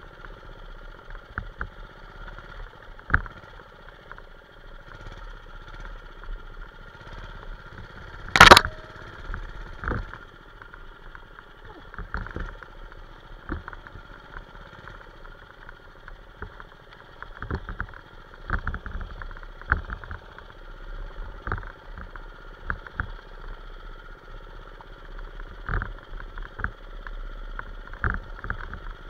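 Manco Streaker minibike's small single-cylinder engine running steadily as it rides a rough dirt trail, with frequent short knocks and rattles from the bumps. One sharp, much louder knock comes about eight and a half seconds in.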